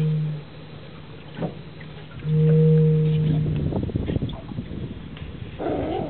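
Whistle buoy sounding a low, steady moan twice, the second for about a second and a half, as the swell drives air through its whistle. Near the end a California sea lion on the buoy gives a short rough bark.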